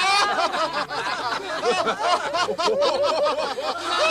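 Several voices laughing and chuckling together at once: mocking laughter, many short overlapping laughs with no break.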